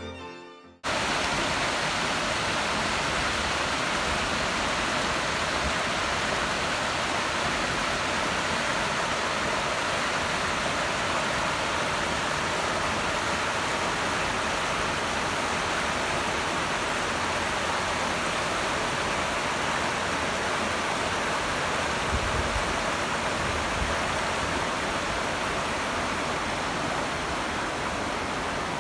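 Steady, even rush of flowing water that starts abruptly about a second in and holds at a constant level.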